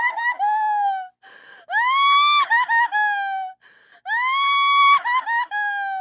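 A woman crying hard: long high-pitched wails that rise and are held, each breaking into short choppy sobs, with gasping in-breaths between them.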